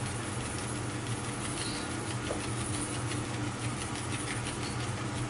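Clear epoxy-mounted sample being wet-sanded by hand on 2000-grit silicon carbide paper: a soft rasping in quick, even up-and-down strokes, over a steady low room hum.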